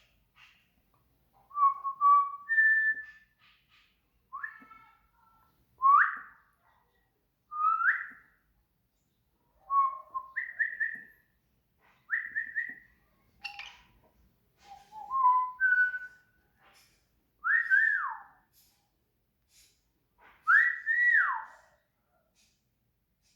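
A series of clear whistled notes: short calls that glide up or down or hold one pitch, about one every second or two, with faint ticks between them. The last few are long rising then falling slurs.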